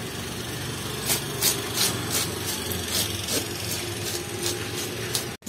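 Knife scraping along the flank of a large Chinese bahaba (yellow croaker), scaling it in short raspy strokes, about two or three a second.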